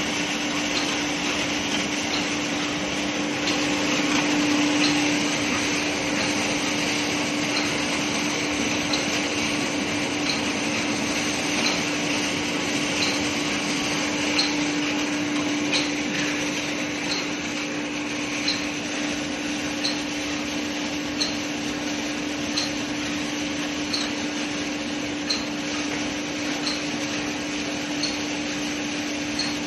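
Wood-pellet handling machinery running steadily: a constant hum with a regular click about every second and a half.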